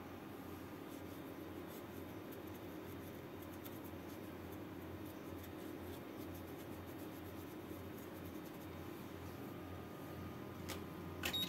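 Cotton swab held in tweezers scrubbing the surface of a laptop motherboard around a chip: faint, scratchy rubbing over a steady low hum, with a sharp click near the end.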